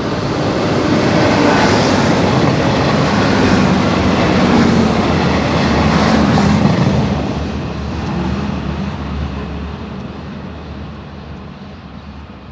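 A diesel passenger train of two coupled MAN 2000 units passing close by, engines and wheels rumbling. It grows louder over the first seconds, holds, then fades away from about seven seconds in.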